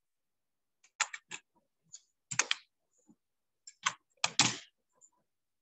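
Keys typed on a computer keyboard: a string of short, separate keystrokes in small groups, starting about a second in, as a chip part number is entered.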